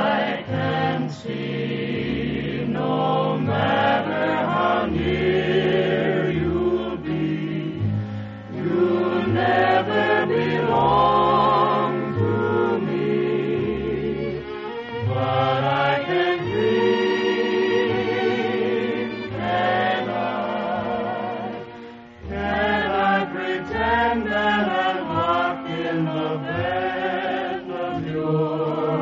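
A choir singing with an orchestra, in sustained wavering notes over a moving bass line, on an old radio transcription. The music dips briefly about three-quarters of the way through, then carries on.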